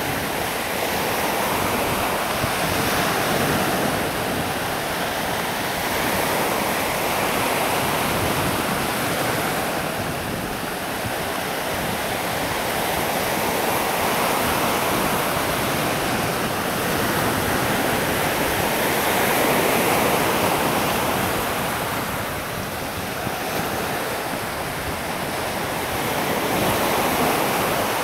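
Steady rush of wind and sea waves, with wind buffeting the microphone; the noise swells and eases slowly every few seconds.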